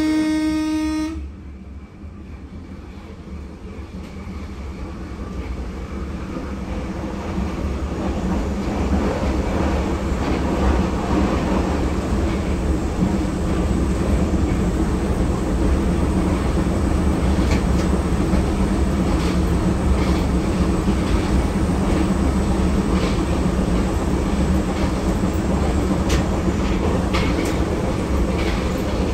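Berlin U-Bahn F-type train heard from the driver's cab: a short horn blast ends about a second in, then the train's running noise and motor hum build over several seconds and hold steady, with occasional clicks from the rails.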